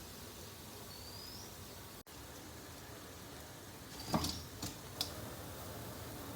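Steady hiss of heavy rain, with a short rising bird chirp about a second in and a few sharp clicks between about four and five seconds in.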